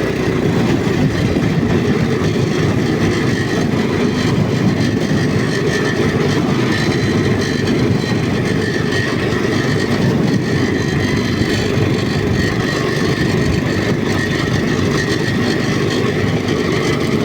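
A walk-behind tractor's engine runs steadily while the machine travels, with a rattle from something on the outside of the engine, not inside it.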